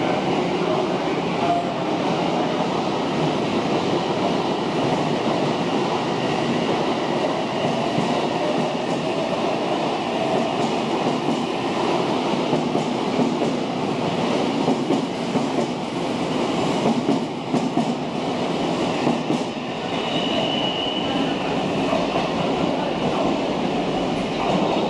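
Odakyu electric train running along the platform, with a steady rumble and wheels clacking over rail joints, plus a brief higher squeal about three-quarters of the way through.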